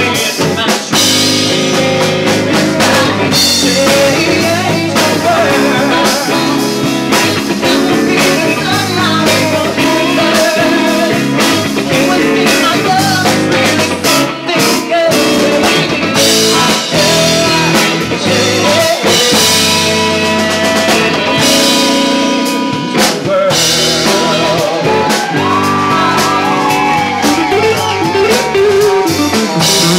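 Live rock band playing: a male vocalist sings into a microphone over electric guitar and a drum kit.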